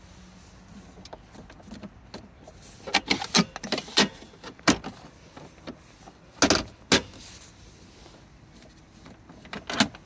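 Plastic clicks and knocks from the center console trim of a 2024 Toyota Sequoia as a console compartment cover is handled, opened and shut. There is a quick run of clicks, then two heavier knocks, then a few more clicks near the end.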